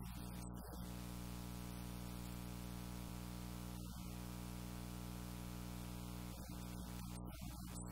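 Steady electrical hum with a stack of even overtones under a constant hiss, unchanging throughout: mains buzz in the recording.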